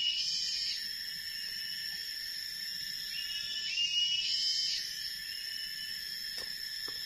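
Forest insects droning in steady high-pitched tones, with a rising call repeating about every four seconds. A couple of faint clicks near the end.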